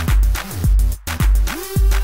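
Background electronic dance music with a steady kick-drum beat; a held synth note comes in about one and a half seconds in.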